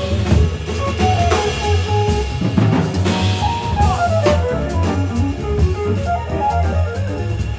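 Live jazz combo: electric guitar playing a running line of single notes over bass, piano and drum kit with cymbals.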